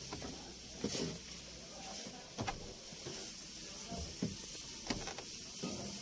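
Aerosol lubricant spraying on a truck door's hinges and lock with a steady hiss, broken by several sharp clicks as the door mechanism is worked.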